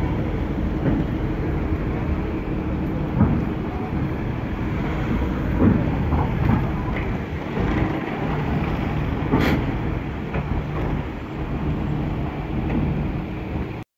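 Car ferry unloading: a steady low rumble of the ship's engines and of cars driving off the vehicle deck, with a few sharp clunks from the steel loading ramp.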